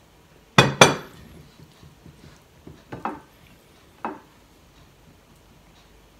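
A glass water pitcher set down on a wooden table, with two sharp ringing clinks about a second in, followed by a couple of softer knocks of dishware as he eats from the plate.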